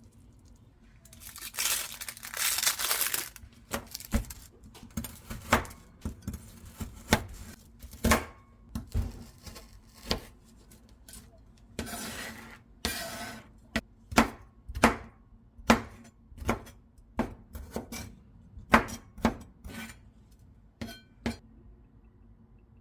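Kitchen handling sounds: a plastic package torn open and crinkled, then a string of sharp clinks and knocks of dishes and utensils, with a second spell of crinkling about halfway through.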